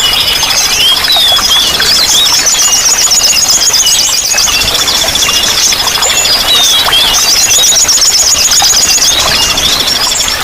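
Several small songbirds singing and calling together over steady running water: long, rapid high trills mixed with short chirps and whistles.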